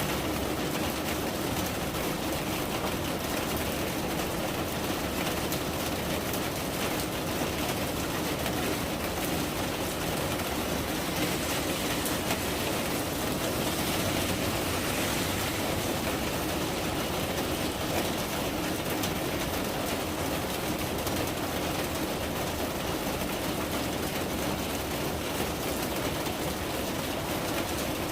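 Steady rain falling, a constant even hiss with no breaks.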